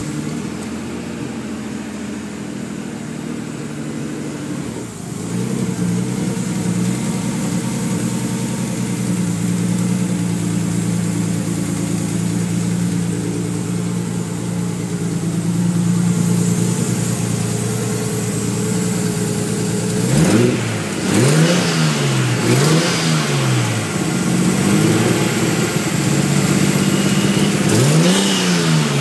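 Nissan RB25 inline-six engine, swapped into an S13 240SX, idling steadily, then blipped three times in quick succession about twenty seconds in and once more near the end. One fuel injector is leaking past a worn-out grommet, a leak the owner says can be heard.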